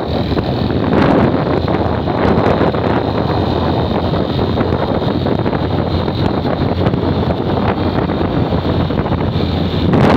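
Loud, steady wind noise on the microphone of a moving motorcycle, with the motorcycle's engine running underneath.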